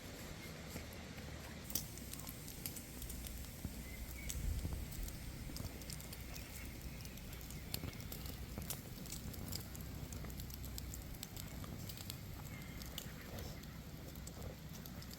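Open wood fire crackling, with irregular sharp pops scattered throughout over a low steady rumble.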